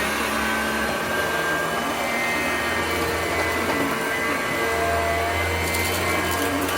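Hoover Concept upright vacuum cleaner with power drive running steadily: a constant motor whine with the rush of air through it.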